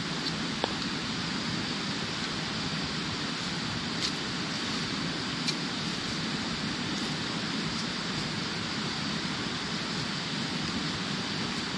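Steady rushing outdoor background noise with no rise or fall, broken by three faint, sharp clicks: one about half a second in, one about four seconds in and one about five and a half seconds in.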